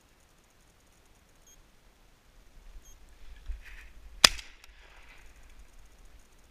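A single shotgun shot a little over four seconds in, fired at a hen goldeneye in flight, with scuffling movement noise in the seconds before and after it.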